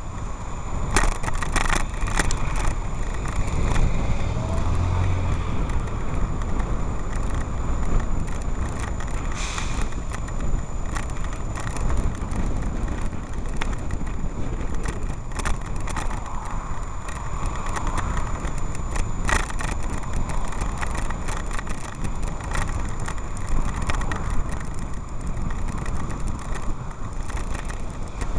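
Bicycle riding along a road in traffic: a steady rumble of wind and road noise on the microphone, broken by scattered short clicks and rattles, with car traffic around.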